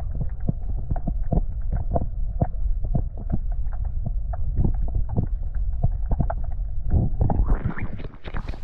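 Irregular footsteps over a steady low rumble on the microphone.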